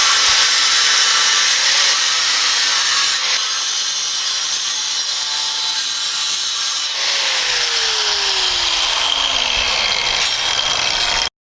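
Angle grinder with a Graff Black diamond cut-off wheel, running loud and cutting. About two-thirds of the way through, a whine falls steadily in pitch while the cutting noise goes on. The sound cuts off abruptly just before the end.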